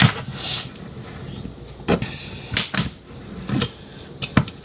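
A knife blade working at a tinned corned beef can, prying along its seam after the opening key failed: a series of short, sharp clicks and scrapes at uneven intervals.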